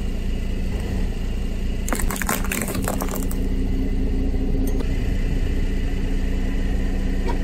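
A car tyre rolling over plastic seashell cases on paving stones, cracking and crunching them in a quick series of snaps about two seconds in, over the steady hum of the car's engine.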